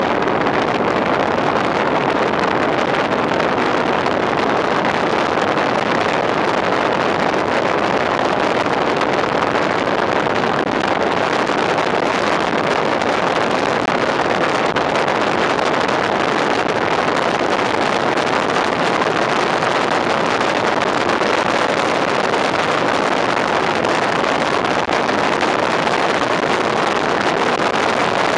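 Steady rush of wind on the microphone held outside the cab of a fire engine driving at speed, mixed with the truck's engine and road noise. The noise is constant, with no siren.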